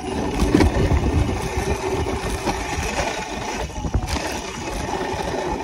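A small dirt bike running as it is ridden along a dirt jump track, with wind rushing over the microphone. There are two sharp knocks from bumps or landings, about half a second in and about four seconds in.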